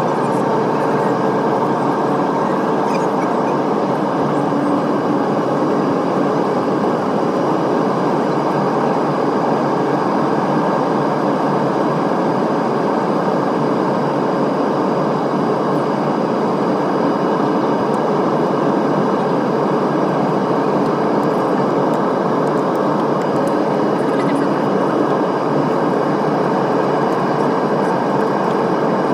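Steady cabin noise inside an Airbus A320neo airliner during descent: a constant rush of airflow and engine noise, with a few faint steady tones on top.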